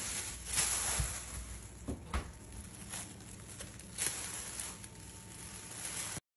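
Thin plastic shopping bag rustling and crinkling as two cats tussle in and over it, with a couple of soft thumps.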